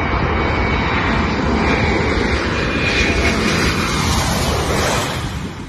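Jet engines of a Wizz Air Airbus A320-family airliner on a very low landing approach, a loud rushing roar that swells as it passes close overhead and fades near the end.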